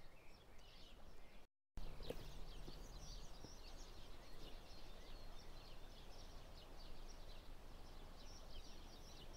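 Faint riverside ambience: small birds chirping in short irregular calls over a low steady rumble. The sound drops out completely for a moment about a second and a half in.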